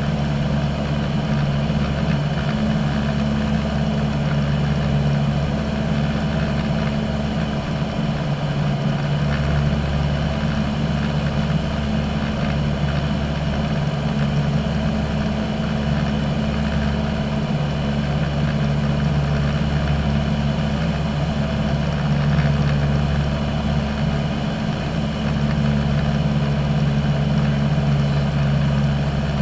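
Single-engine light aircraft's piston engine and propeller running steadily in cruise, a constant deep drone heard inside the cabin.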